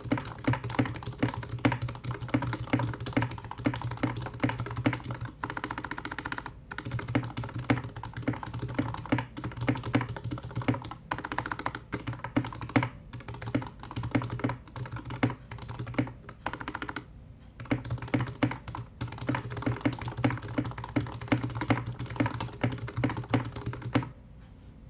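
Fast typing on a GK61X mechanical keyboard with lubed Gateron Red Ink V2 linear switches, PBT Cherry-profile keycaps, a stainless steel plate and a plastic case: a dense run of key clacks with a few brief pauses, stopping shortly before the end. The sound is mushy and muted, which the uploader puts down to switch interference with the Cherry-profile caps caused by the orientation of the hotswap sockets.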